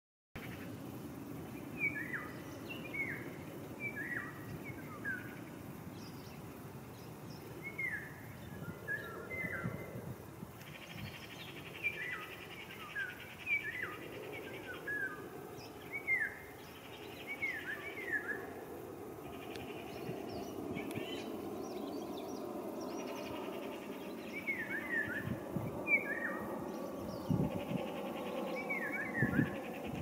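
A songbird singing: short, quickly falling chirps in clusters of two to four, repeated every second or two.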